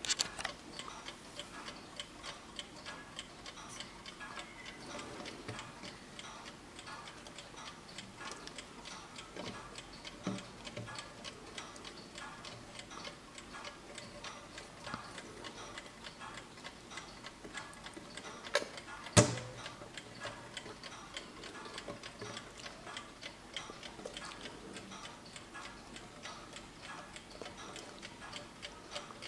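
Antique Junghans brass alarm clock ticking steadily in a quick, even beat, with a few faint knocks and one sharp knock about two-thirds of the way through.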